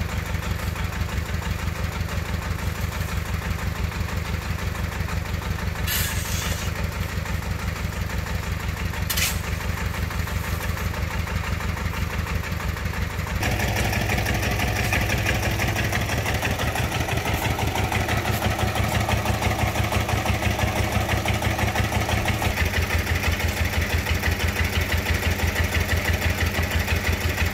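Công nông's single-cylinder diesel engine idling with a steady, rapid, even chug. It is louder and closer from about thirteen seconds in.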